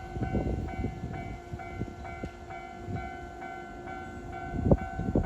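Level crossing warning bell ringing in a steady repeating pattern over the low rumble of an approaching Keisei 3700 series electric train. Near the end there is a sharp clank, and the train's rumble and wheel noise swell as it reaches the crossing.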